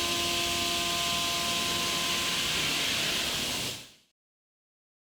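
CNC milling machine cutting a forged C450 compressor blade: a steady hiss of cutting and coolant with a few steady whining tones from the spindle and cutter. It fades out about four seconds in, leaving silence.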